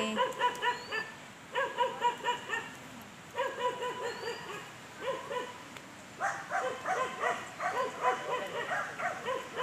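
An animal calling in runs of short, quick, evenly spaced pitched notes, in several bursts of about a second each with short pauses between.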